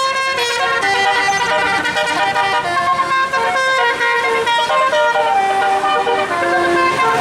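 Bus telolet horn playing a melody: a continuous run of short multi-tone horn notes that change pitch every fraction of a second.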